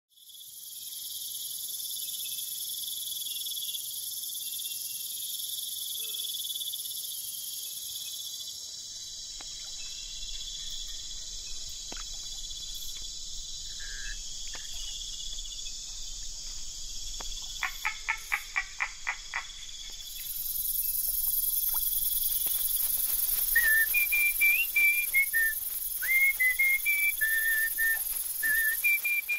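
Steady, dense chorus of night insects, crickets or cicadas, high-pitched and continuous. Just past halfway a short, rapid run of about ten chirps sounds. From about three quarters of the way in, a person whistles a slow melody of held, stepping notes over the chorus.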